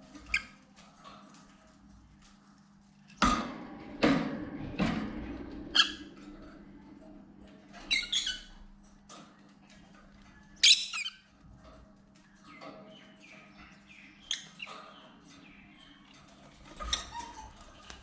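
Lovebirds chirping with short, high calls now and then, with a run of sharp knocks and rustles about three to six seconds in as the birds move about the wire cage.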